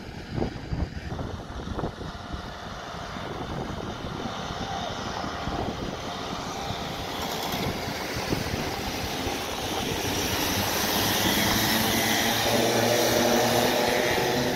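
Racing go-kart engines running as a pack of karts passes on the track, their buzz growing steadily louder and settling into a steady engine tone near the end. A few knocks about a second in.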